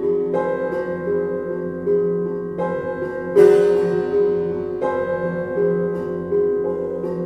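Slow instrumental music from prepared piano and electronics: struck, piano-like notes ring out and fade over a steady held drone. A new note sounds every second or two, the loudest about three and a half seconds in.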